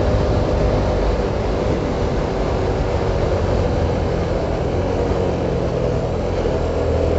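Motorcycle running at a steady cruising speed, with a low engine hum under a steady rush of wind noise on the microphone.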